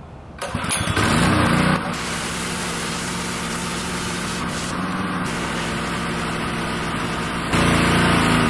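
DeWalt 3400 PSI gas pressure washer's small engine running steadily, its fuel tank nearly empty, with louder stretches about a second in and near the end.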